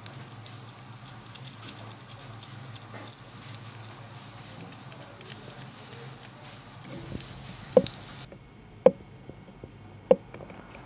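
A baby hedgehog smacking wetly while it eats, a fast run of small clicky smacks. Near the end a baby squirrel sucks at a feeding syringe, with three loud short smacks about a second apart.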